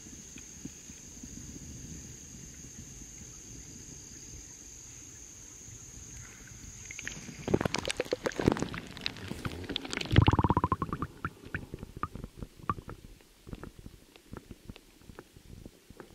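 Insects trilling steadily in two high tones, cut off about seven seconds in as the microphone goes under the water. Then water splashing and bubbling around the submerged microphone, loudest at about ten seconds, followed by scattered pops and clicks of bubbles thinning out.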